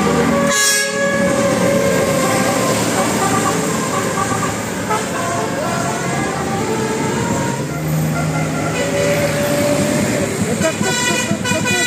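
Motor traffic running steadily, with vehicle horns tooting; one horn sounds near the end.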